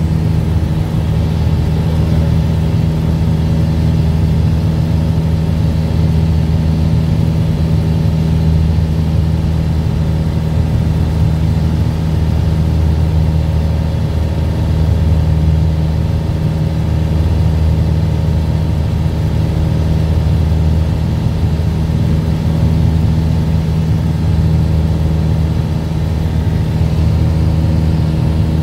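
Light aircraft's engine and propeller droning steadily in flight, heard inside the cabin: an even, deep hum with no change in pitch or loudness.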